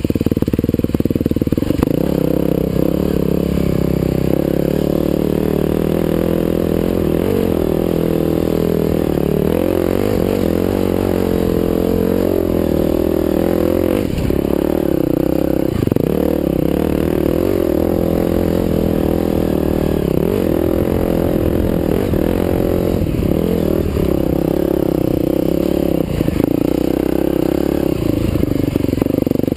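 Husqvarna TE511 single-cylinder four-stroke enduro dirt bike engine running under way on a dirt trail, its revs rising and falling again and again with the throttle.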